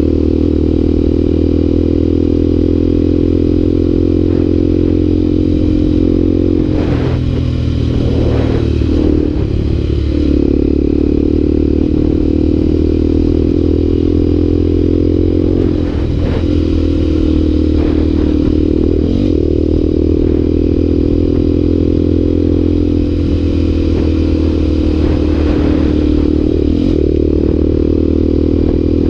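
Motorcycle engine running steadily while riding on a dirt road, heard from the rider's position on the bike. The engine note dips and picks up again briefly several times as the throttle changes.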